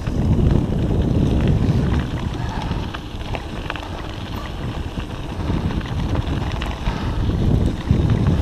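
Wind buffeting a GoPro camera's microphone as a mountain bike rolls along a gravel track, with scattered small clicks and rattles from the bike and tyres. The rumble is strongest at the start and again near the end.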